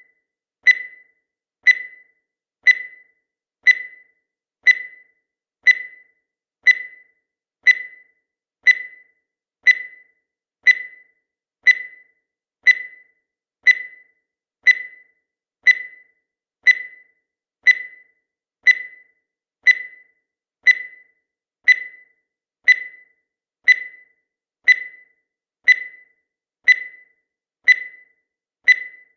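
Countdown timer sound effect: a short, high-pitched electronic beep once a second, each starting sharply and dying away quickly.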